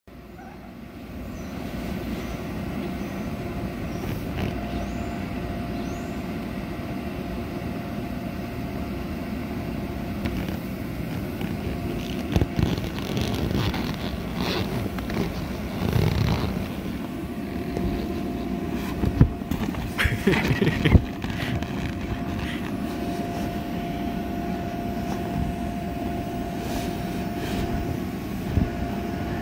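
A motor running steadily throughout, with a few knocks and rattles about halfway through.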